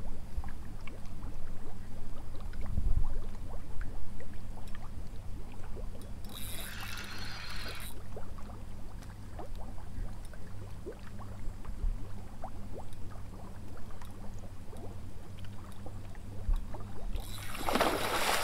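A hooked fish splashing at the surface of the lake near the end, a loud rush of water, with a shorter burst of similar noise about six seconds in. A steady low rumble sits underneath throughout.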